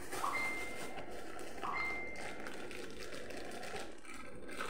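Rustling handling noise of the kit's packaged accessories being moved about by hand, with two short high-pitched tones about a second and a half apart near the start.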